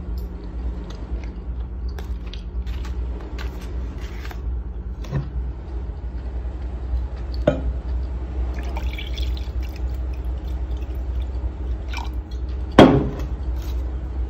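Small clicks of a fork on the aluminium foil around a grilled fish, then red wine poured from a glass bottle into a wine glass. A sharp knock near the end is the loudest sound, over a steady low hum.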